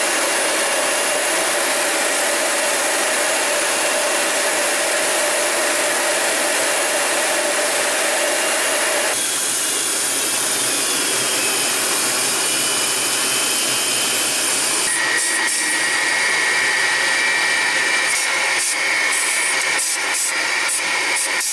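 Jet engine and airflow noise heard inside the cockpit of a MiG-31BM, with its two turbofans, as a steady loud rush. The sound changes abruptly about nine seconds in as the aircraft is on the runway, and from about fifteen seconds a steady high whine joins in, with a few short clicks near the end.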